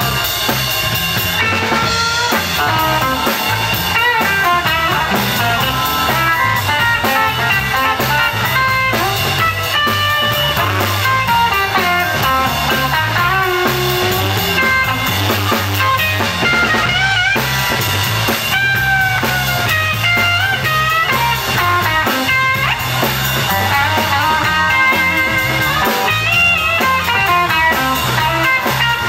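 A live blues band is playing: electric guitars over bass and a drum kit, with a lead line of bent, sliding notes.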